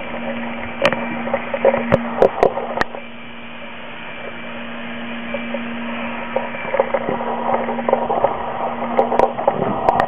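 A steady low hum under a hiss of noise, with a handful of sharp clicks: one about a second in, a cluster around two seconds in, and a few more near the end.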